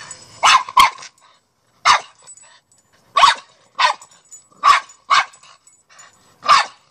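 Young dog barking repeatedly: eight short barks, several in quick pairs. The owner takes the barking for the dog wanting to go back inside.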